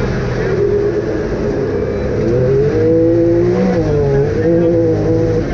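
Can-Am off-road vehicle engine running under load, its pitch rising and falling as the throttle opens and closes.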